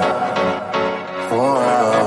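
Background pop music: a melodic lead that slides between notes over a full backing.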